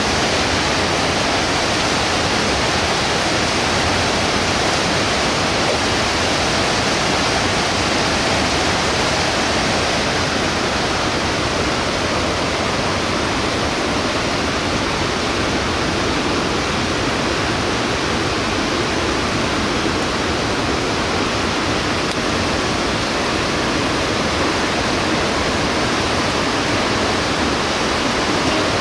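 Fast mountain river rushing over rapids: a loud, steady wash of water noise with no break.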